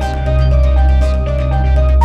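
Tense, repetitive horror music: a looping arpeggio of short repeated notes over a steady deep synth drone.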